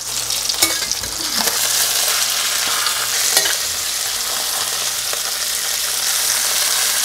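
Black sea bass fillets sizzling steadily in hot butter and olive oil in a stainless steel skillet. A few sharp clicks of a metal fish spatula against the pan come as the fillets are turned from the skin side.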